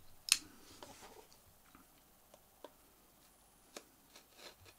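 A sharp click, then light scattered ticks and faint scraping as a pocket-knife blade slits the paper tax seal along the edge of a cigar box.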